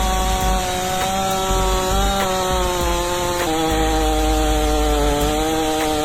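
Holzforma G888's 122 cc two-stroke chainsaw engine held at high revs, its pitch steady with a small drop about three and a half seconds in.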